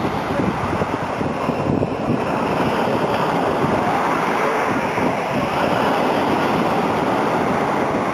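Sea surf washing in steadily, mixed with wind buffeting the microphone.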